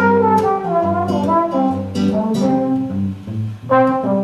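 Trombone playing an improvised jazz melody over acoustic guitar accompaniment, with a short break in the phrase about three and a half seconds in before the next phrase starts.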